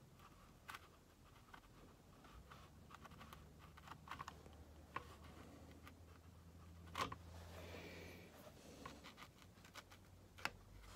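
Near silence with the faint scratch and light taps of a watercolour brush working on paper, and a few small clicks, the sharpest about seven seconds in and near the end.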